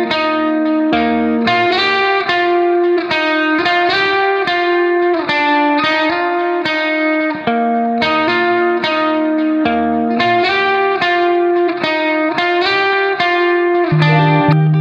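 Background music: a guitar playing a plucked melody note by note, with a low bass line coming in near the end.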